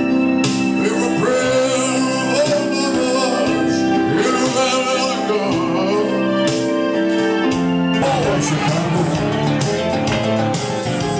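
Live one-man-band music: a man singing over held electronic organ chords, with electric guitar. Around eight seconds in the vocal line ends and the guitar takes over with busier picking.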